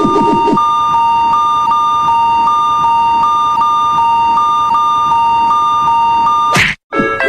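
Japanese railroad crossing alarm: an electronic two-tone warning bell, two close pitches alternating steadily a little under three times a second. A brief rapid low pulsing sounds in the first half second. Near the end a sudden whoosh cuts it off.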